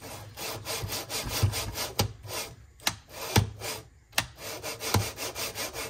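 Voron 0.2 X gantry pushed back and forth by hand on its miniature linear rails, a gritty sliding rub from the rail carriages in repeated strokes, with several sharp clicks along the way. It runs freely, without binding.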